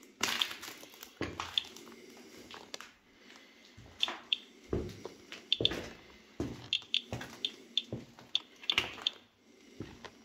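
Footsteps crunching and scuffing on grit and debris over a concrete floor, an irregular run of crackles and sharp clicks.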